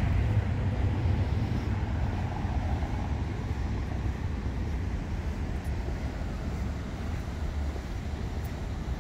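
Street traffic: the low rumble of a passing vehicle that slowly fades away.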